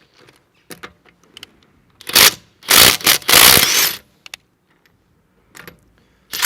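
Brushless cordless impact driver hammering a torqued wheel bolt loose through an impact socket. A short burst comes about two seconds in, then a longer one of about a second, with a few small metallic clicks between.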